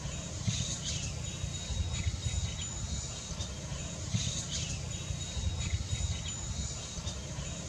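Roosting colony of large flying foxes giving short, scattered squeaky calls, a little louder about four seconds in. Under them run a steady high insect drone and a low rumble.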